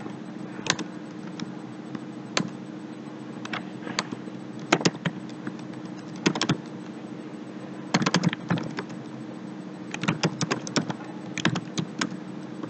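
Typing on a computer keyboard: single keystrokes and short bursts of several keys with pauses between, over a steady low hum.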